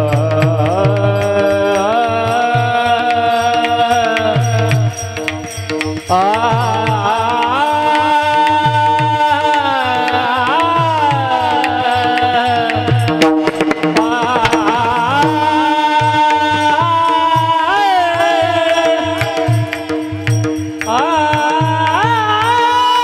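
Marathi kirtan chorus of men singing a devotional chant in long, gliding held lines, accompanied by small brass hand cymbals (taal) struck in steady rhythm and a drum keeping time, over a steady held note. The singing breaks briefly about a fifth of the way in and again near the end.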